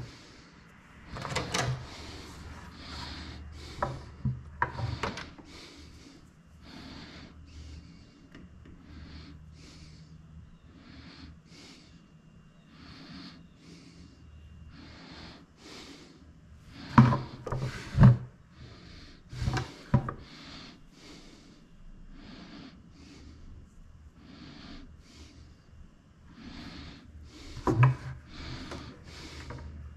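Workshop handling noises: a run of short rubbing and scraping sounds with clunks and knocks, several sharp louder knocks near the middle and one near the end.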